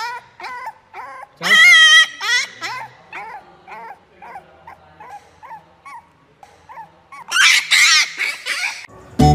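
A puppy whining in a run of short, high yips, with one loud, wavering howl about one and a half seconds in and a louder, rougher cry near the end. Music cuts in at the very end.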